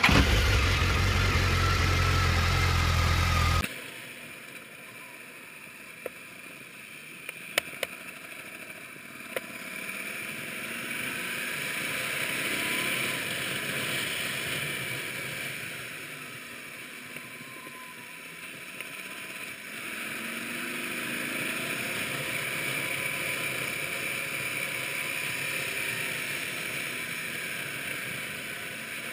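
Motorcycle riding along a winding road, heard from a bike-mounted camera: a steady rush of wind and engine that grows louder and softer over time, with a few light clicks. The first few seconds are much louder and heavier.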